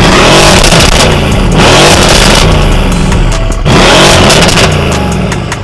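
Mercedes-AMG C63 (W205) twin-turbo 4.0-litre V8, fitted with downpipes and a stage 2 tune, revved hard three times while stationary, the exhaust note rising and falling with each rev.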